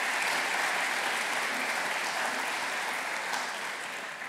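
Audience applauding steadily as an award winner crosses the stage, dying away just after the end.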